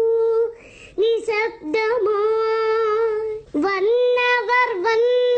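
A young boy sings a Malayalam poem unaccompanied, holding long, steady notes. He breaks off for a breath about half a second in and again a little past three seconds.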